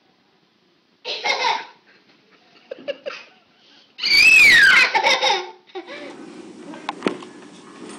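Young child laughing and squealing: a short burst about a second in, then a louder high squeal around the middle that slides down in pitch. After that comes a steady low background hum with a few light knocks.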